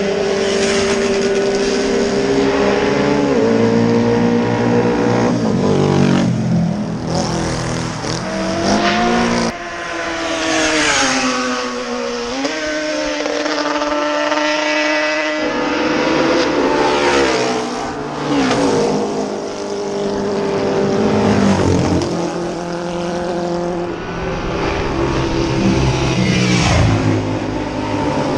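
Racing motorcycles passing one after another at full throttle on a road circuit, their engine notes rising and falling as they approach, pass and pull away.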